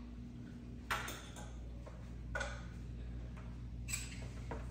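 Steady low room hum with three light clicks or taps, about a second, two and a half seconds and four seconds in.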